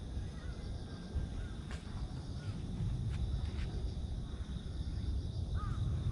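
Outdoor ambience: a steady low rumble under a thin, steady high insect drone, with a few short chirps and a louder pair of chirps near the end.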